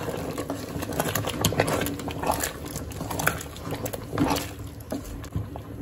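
A spoon stirring a thick rice, dal and vegetable mixture in an aluminium pot, with irregular scrapes and knocks against the pot.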